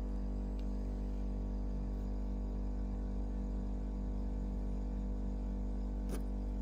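A steady low hum made of several held tones, with a short click about six seconds in.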